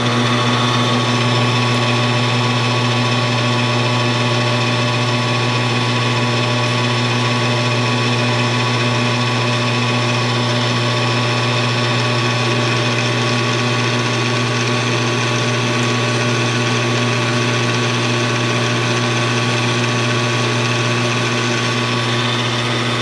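Metal lathe running with the chuck spinning: a steady machine hum with many overlapping steady tones from the motor and drive, switched on at the start and shut off near the end. The tool takes a light pass that removes almost no metal, so the machine's own running is all that is heard.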